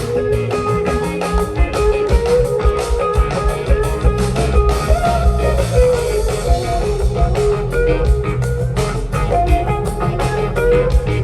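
Live rock band playing an instrumental jam: electric guitar picking repeating melodic lines over a steady bass line and a drum kit keeping a regular beat.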